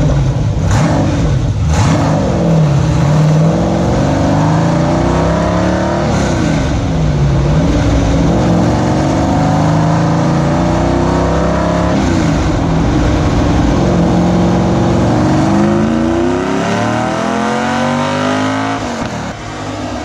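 6.0-litre LS V8 running at full throttle through the gears on a dyno pull. The engine note climbs, drops at each upshift and climbs again several times, then is let off near the end.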